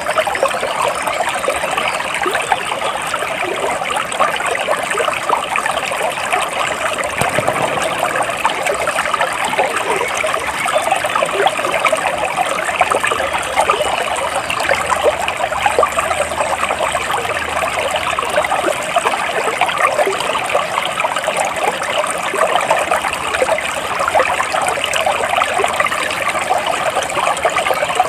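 Flowing water trickling and babbling steadily.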